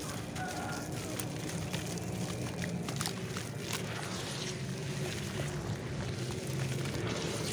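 Hands crumbling and squeezing lumps of wet clay in a tub of water, splashing and sloshing with many small crackling clicks.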